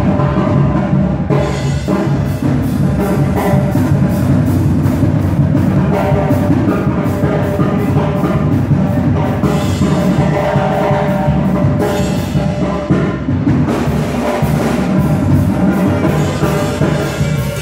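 Loud live brass band music with a sousaphone and drums: a steady drum beat under sustained brass playing.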